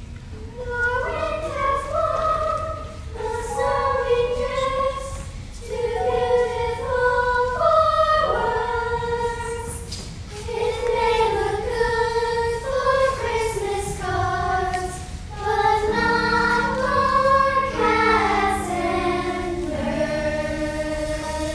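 A choir singing a slow song in sustained phrases with short breaks between them; steady low accompaniment notes come in about three-quarters of the way through.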